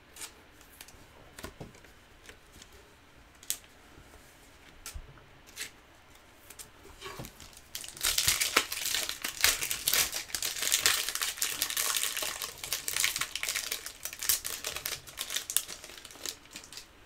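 A few light isolated clicks and taps, then from about eight seconds in a long spell of crinkling and tearing as a trading-card pack wrapper is ripped open and handled.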